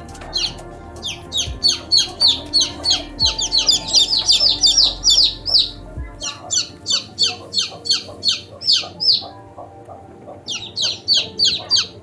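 A bird giving rapid runs of short, high-pitched calls, about three to four a second, broken by two brief pauses, over a background music bed.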